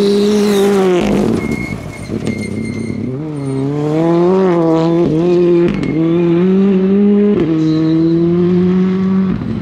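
Ford Fiesta rally car's engine at full race pace: it eases off about a second in, with a few sharp cracks, then revs back up with several quick gear changes and holds a steady high note as the car drifts through a corner.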